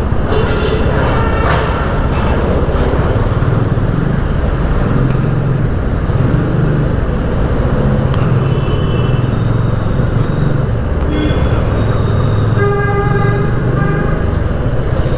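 Bajaj Dominar 400's single-cylinder engine running at road speed with wind rush on the helmet microphone, in traffic. Vehicle horns honk several times, the longest toot near the end.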